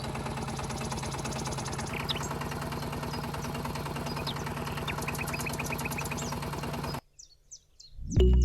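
The small motor of a homemade miniature tractor running steadily with a fast, even ticking, while birds chirp. About seven seconds in, the sound cuts off abruptly, and music starts near the end.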